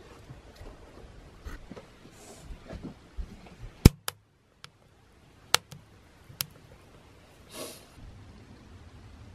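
Wood fire burning in a stove, giving a handful of sharp, separate pops over near silence. Faint knocks and rustles come before the pops, and a short breathy hiss comes near the end.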